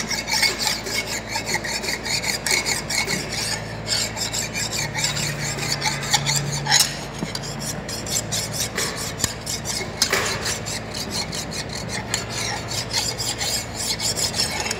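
Flat hand file rasped in rapid repeated strokes across the machined steel face of a Caterpillar 3516 connecting rod's big end. It is dressing off nicks and burrs so the face sits true on the boring machine.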